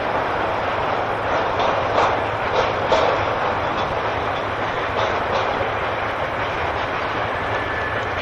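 Train running past on jointed track: a steady rumble and rush of wheels on rail, with a few sharp clicks as wheels cross the rail joints.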